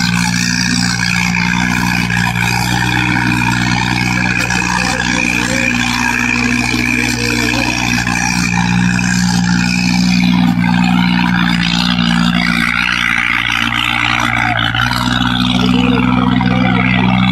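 Diesel tractor engine running steadily, its pitch shifting slightly a few times, over a haze of background noise.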